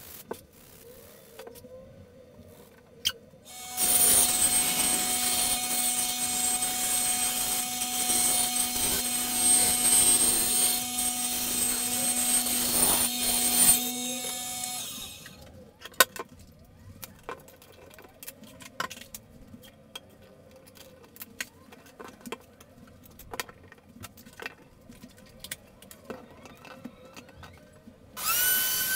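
Benchtop bandsaw running and cutting through plywood for about ten seconds, then winding down and stopping. Light clicks and knocks of handling follow. Near the end a plunge router switches on with a rising whine that then holds steady.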